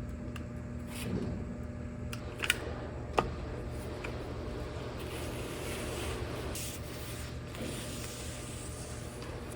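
Small handling noises over a steady low hum: two sharp clicks less than a second apart, then a few seconds of rasping, hissy noise.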